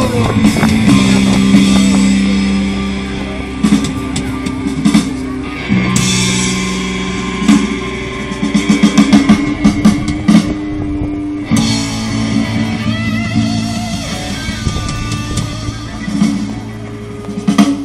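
Rock music from a band with guitar and drum kit, loud and steady, with a quick run of drum hits about eight to ten seconds in.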